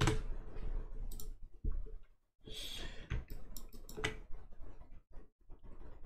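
Computer mouse clicking: scattered single clicks, with a quick run of several about three and a half seconds in.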